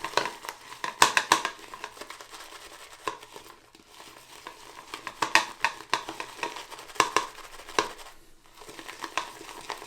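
Synthetic shaving brush working wet shaving soap into lather in a bowl: irregular wet, crackling swishes, louder about a second in and again around five and seven seconds. The lather is still sudsy, just after a few extra sprays of water.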